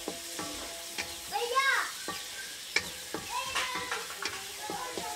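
A metal spatula scrapes and taps against a steel karai as chopped onions and shrimp are stirred in hot oil, over a light sizzle. A chicken clucks about a second and a half in, the loudest sound, and again about three and a half seconds in.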